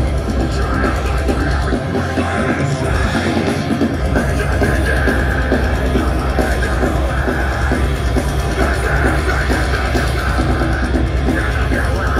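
Deathcore band playing live: distorted guitars, bass guitar and drums, loud and dense. The lowest bass drops out for about two seconds near the start, then returns.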